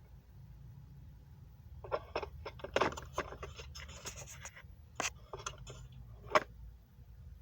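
Handling noise: a scattered run of sharp clicks and light knocks with a short scrape, the loudest knock about six seconds in.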